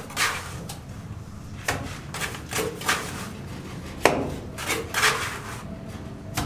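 Irregular knocks and scrapes of wood being handled, a dozen or so sharp strikes with pauses between them.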